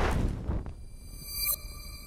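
Electronic intro sound effect: a sudden loud whoosh that fades, then a sustained ringing synthetic tone with a sharp bright accent about one and a half seconds in.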